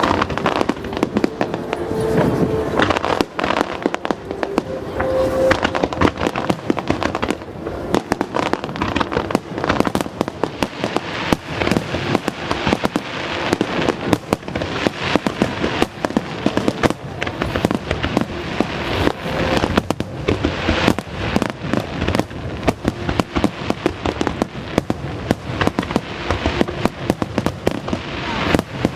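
Aerial fireworks going off in a dense, continuous barrage: sharp bangs and crackling reports, many a second, with no pause.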